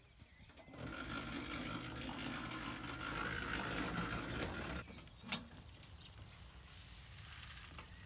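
Small electric cement mixer running with a steady mechanical hum, its drum tumbling a dry grain feed mix. It starts about a second in and stops after about four seconds, followed by a single sharp knock and then a faint hiss.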